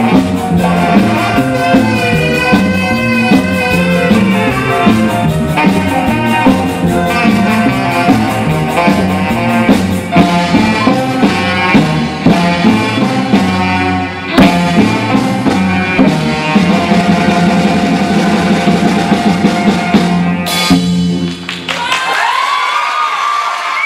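Live band with singers, bass guitar and drum kit playing the last bars of a ska song, ending on a sharp final hit about 21 seconds in. The audience then starts cheering and applauding, with whistles.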